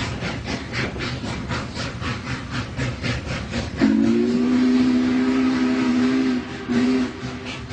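Train horn sounding a chord of several notes, one long blast of about two and a half seconds and then a short one, over a steady rhythmic clack of train wheels on rail joints, about four a second.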